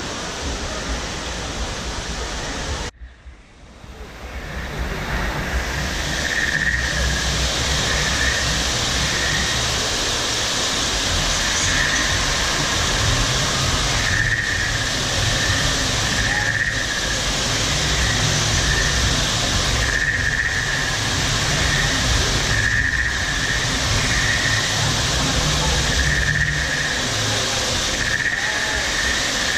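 Waterfalls spilling over rockwork into a pond: a steady rush of water. A short high warbling call repeats every two to three seconds over it. The sound drops out briefly about three seconds in, then fades back up.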